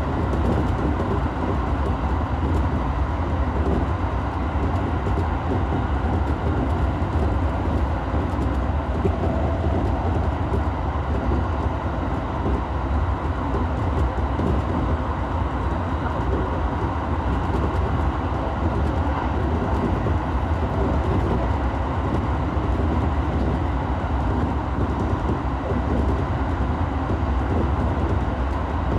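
Electric commuter train running through a tunnel, heard from inside the front car: a steady rumble of wheels on rail, with a faint steady whine above it.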